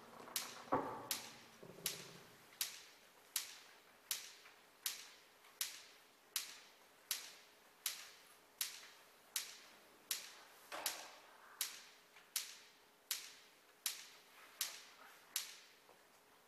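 Sharp clicks repeating at an even pace, about four every three seconds, each with a short ring that dies away. Twice a duller, lower knock sounds under them, and the clicks stop about a second before the end.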